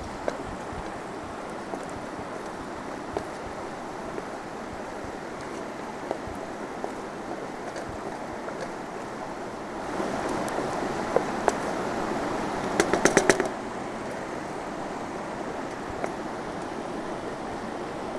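Chicken and rice sizzling in a frying pan over campfire coals while being stirred with a wooden spoon, with scattered knocks and scrapes of the spoon on the pan. The frying grows louder about ten seconds in, with a quick run of clicks a few seconds later.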